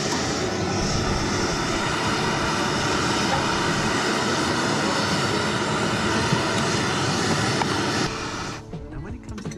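Backpacking gas-canister stove burning at full flame under a pot of water: a loud, steady roaring hiss that stops about eight seconds in.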